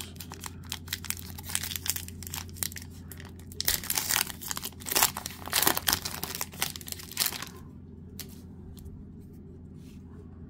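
Plastic wrapper of a 2016 Donruss baseball card pack being torn open and crinkled as the stack of cards is pulled out. The crackling is loudest about four to six seconds in, then dies down to a few soft clicks near the end.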